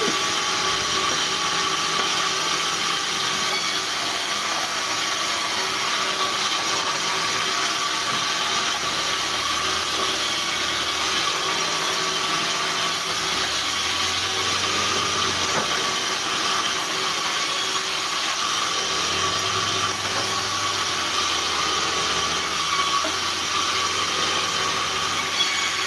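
Sawmill band saw running steadily while its blade cuts through logs as they are fed past it.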